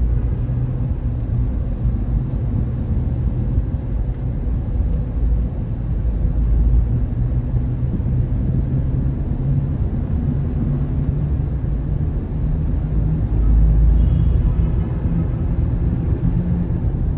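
Car driving on a city highway, heard from inside the cabin: a steady low rumble of engine and tyres on the road that swells and eases a few times.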